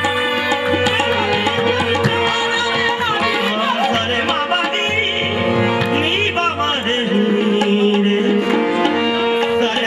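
Qawwali sung live: voices singing ornamented, gliding melodic lines over the steady drone and melody of hand-pumped harmoniums, with percussion keeping the rhythm.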